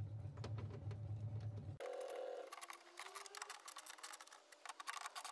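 A 3/8-inch ratchet with a 10 mm socket clicking in quick runs as the speaker's mounting screws are driven in. A steady low hum fills roughly the first two seconds, and the clicking fills the second half.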